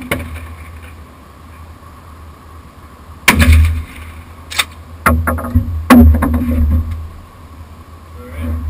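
Shotgun shots at clay targets: a loud report about three seconds in, a fainter crack a little later, then two more loud reports about a second apart, over a steady low rumble.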